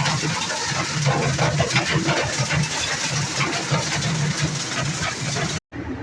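Air duct cleaning equipment running: a steady, loud machine noise with a rough low hum and irregular rattling, cut off suddenly near the end.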